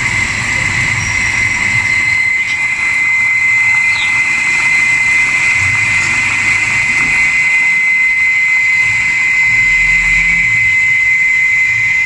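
Midea front-load washing machine filling: mains water hisses through the inlet valve and pours into the detergent dispenser drawer with a steady rush and a thin high whine.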